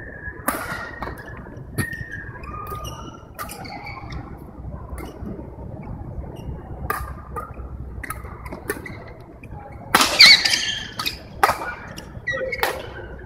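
Badminton rally in a large indoor hall: sharp racket-on-shuttlecock hits at irregular intervals, roughly one a second, with shoes squeaking on the court floor, loudest around ten seconds in, over a steady murmur of hall chatter.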